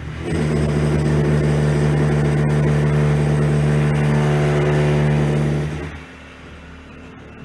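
Electric power tool motor running at a steady speed for about five and a half seconds with a constant pitch, then switched off and winding down quickly.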